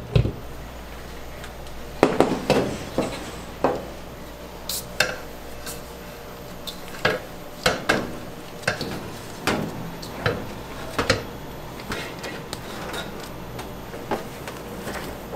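Irregular metallic clinks and knocks, roughly one or two a second, as pizza dough is handled in and lifted out of a stainless-steel mixer bowl, over a faint low hum.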